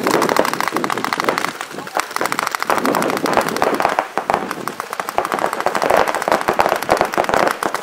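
Several paintball markers firing rapidly at once, a dense, continuous crackle of many shots a second, with voices shouting underneath.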